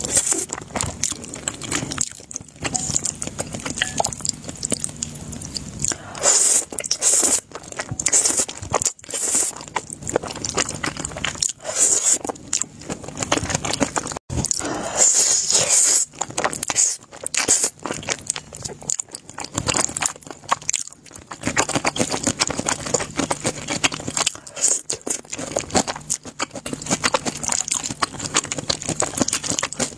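Close-miked eating sounds: noodles in black sauce being slurped in and chewed, with wet, sticky mouth clicks and smacks and an occasional crunch, in an irregular run throughout.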